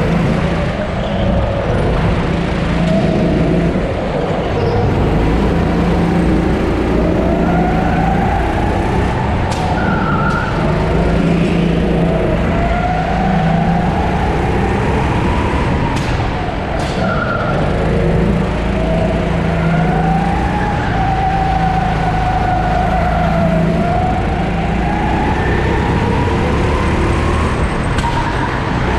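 Sodi 270cc single-cylinder four-stroke rental kart engine heard close up from on board at racing pace. Its pitch climbs as it accelerates and drops as it comes off the throttle, over and over every few seconds. A few sharp knocks cut in around the middle.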